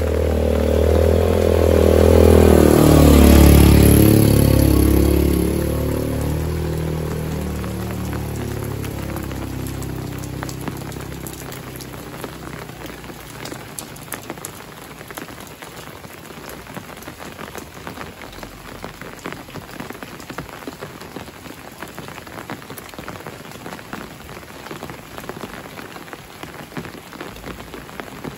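A motorcycle rides up and passes close by, its engine note loud and dropping in pitch as it goes past, then fading within a few seconds. Steady rain falls after it, with scattered drips.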